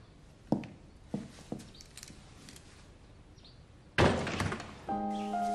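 A few spaced footsteps, then a door shut hard about four seconds in. Soft music with held notes begins near the end.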